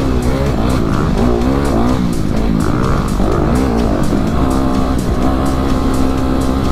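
Dirt bike engine running as it is ridden along a trail, its pitch rising and falling with the throttle, then holding steady, with background music with a steady beat playing over it.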